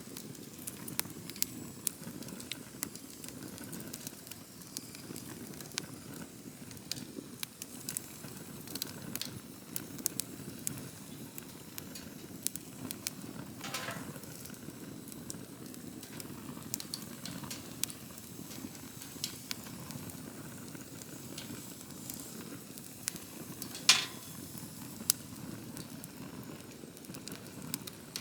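Wood campfire burning: a steady low rush of flames with frequent sharp crackles and pops, one louder pop near the end.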